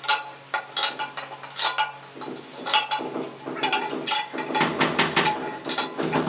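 Cloth or scouring pad scrubbing glazed ceramic wall tiles in a quick, irregular series of rasping strokes, cleaning residue off the freshly laid tiles.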